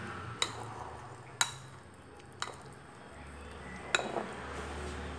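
A utensil clinking against a glass bowl of pancake batter off camera: four sharp clinks about a second apart, the last doubled, over a low steady hum.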